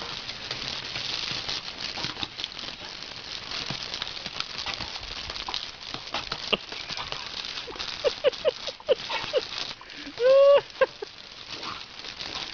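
Garden hose jet spattering on paving stones as a dog snaps and bites at the water. About eight seconds in comes a quick run of short high yips, and a louder drawn-out yelp follows a couple of seconds later.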